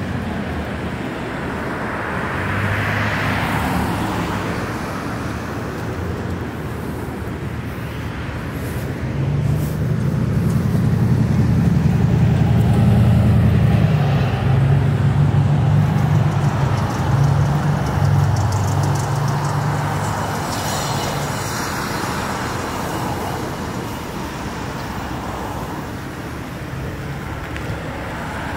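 Road traffic: a motor vehicle engine hum that swells in the middle and then eases off.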